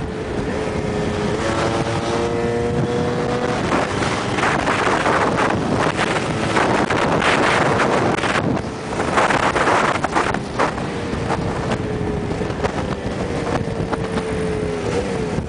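Two-stroke scooter engines running at road speed under heavy wind buffeting on the microphone. An engine note rises briefly about two seconds in, and another engine tone slowly falls through the second half.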